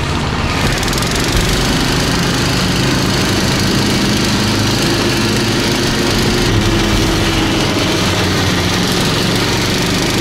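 Baltmotors Barboss motorized snow tug ("motor-dog") engine running steadily while it tows a loaded cargo sled across snow.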